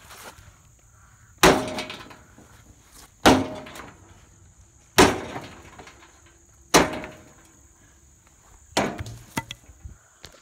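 Sledgehammer blows on an old grill: four hard strikes about two seconds apart, each ringing briefly, then a weaker hit followed by a little rattling near the end.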